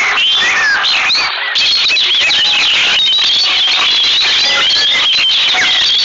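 Many small birds chirping and twittering at once, a dense, continuous chatter of short high calls with a brief dip about a second and a half in.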